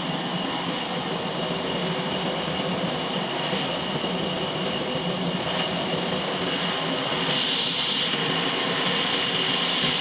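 Band sawmill running, its blade cutting lengthwise through a large log: a steady machine hum under a high, hissing whine that grows louder about seven seconds in.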